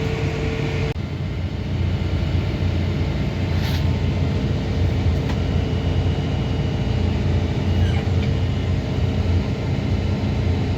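Tractor engine running steadily with a low drone during corn silage chopping. A faint steady whine stops about a second in.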